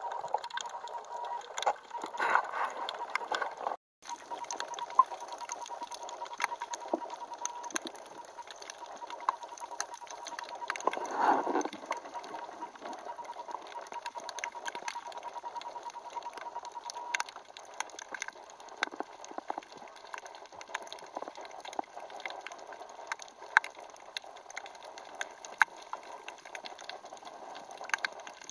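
Underwater ambience picked up by a camera in a waterproof housing: a steady hiss with scattered crackling clicks. A faint steady whine runs through the first half and stops at about seventeen seconds; there is a brief dropout about four seconds in and a short rush of noise around eleven seconds.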